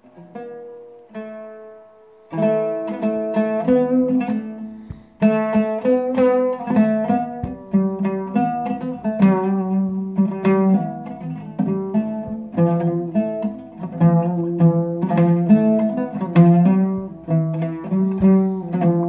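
Oud played solo, picked note by note: a few soft single notes at first, then from about two seconds in a loud, flowing melody of quick plucked notes.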